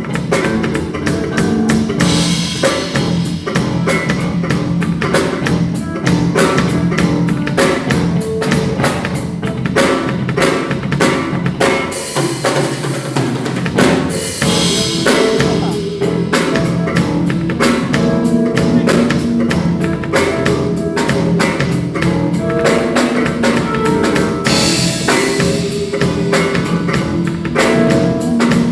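Music with a full drum kit, kick and snare keeping a steady beat over bass and pitched instruments; the low bass drops out briefly about halfway through.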